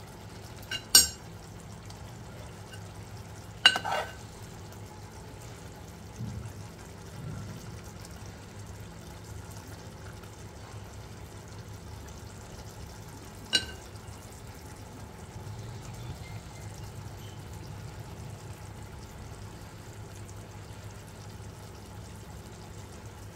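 A small steel spoon clinks sharply against a steel cooking pot three times: about a second in, near four seconds and near thirteen and a half seconds. It is scooping cooked mince into a slit green chilli. A low steady hum runs underneath.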